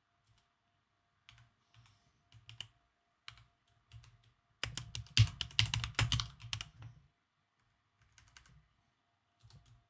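Typing on a computer keyboard: a few scattered keystrokes, then a fast run of typing about halfway through, then a few more keystrokes near the end.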